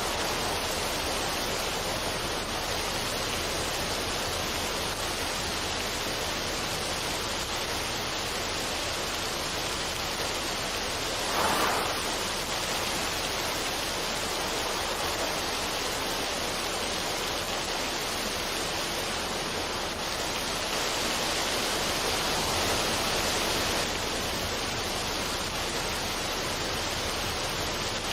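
Waterfall on a mountain stream, water rushing steadily over rocks, with a brief louder surge of water about eleven seconds in.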